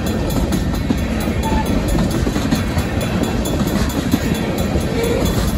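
Freight train tank cars rolling past at a grade crossing: steady noise of steel wheels running on the rails.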